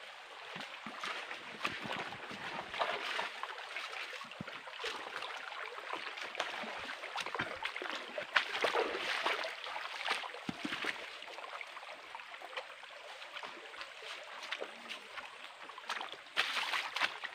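Shallow stream running over rocks, with scattered small clicks and splashes of steps on stones and in the water, and a louder rush near the end.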